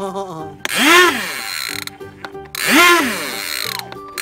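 Little Tikes toy lawn mower's electronic engine sound effect: a pitched revving sweep that rises and falls, repeating about every two seconds, with steadier tones and some clicking in between.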